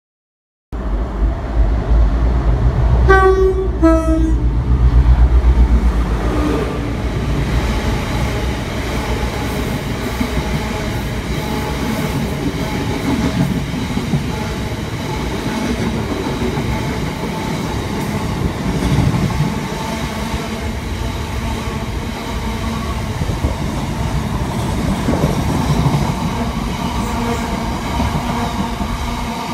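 Freight train passing close by: a diesel locomotive arrives with a deep engine rumble and sounds its two-tone horn in two short blasts, the second lower, about three seconds in. A long rake of coal hopper wagons then rolls past with a steady rumble and rattle of wheels on the rails.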